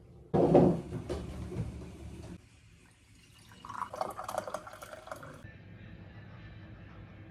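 Water running and pouring, in short stretches that start and stop suddenly.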